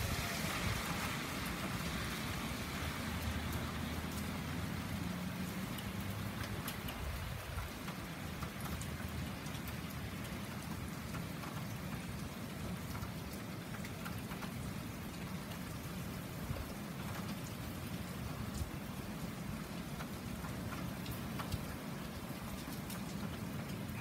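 Steady typhoon rain falling on the street and roofs, with many small raindrop ticks and a low rumble underneath. At the start a car's tyres hiss past on the wet road, fading within about two seconds.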